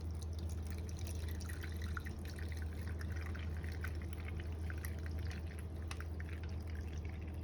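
Water being poured into a baking pan around the custard cups to make a water bath, a steady trickle with small splashes and drips, over a steady low hum.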